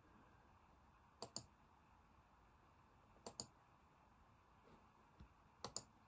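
Computer mouse clicking: three quick double clicks about two seconds apart, with a faint single click shortly before the last pair.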